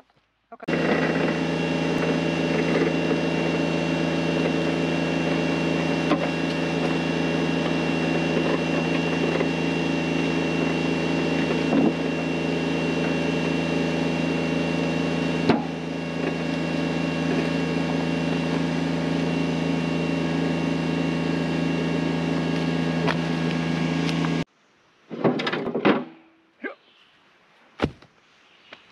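A compact tractor's engine runs at one steady speed. It starts sharply about a second in and cuts off sharply near the end. A few heavy knocks of rocks follow as they are handled in the loaded steel bucket.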